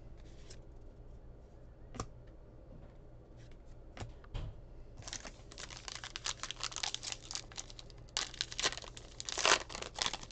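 A trading card pack's wrapper being crinkled and torn open by hand: a few light clicks of cards being handled, then from about halfway in a dense crackling of the wrapper that is loudest near the end.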